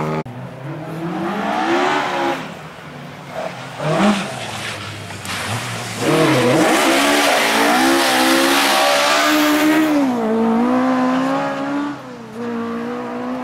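Rally car engine revving hard through the gears on a stage, its pitch climbing and dropping with each shift; it grows much louder about halfway through and eases briefly near the end.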